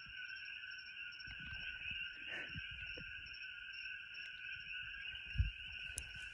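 Steady, high-pitched evening chorus of calling frogs and insects. A few low thumps of the phone being handled and moved, the loudest about five seconds in.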